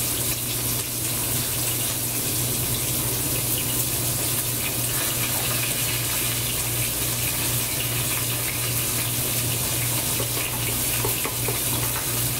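Beef shoulder roast searing in hot olive oil in a cast aluminium pot: a steady sizzle, with a steady low hum underneath.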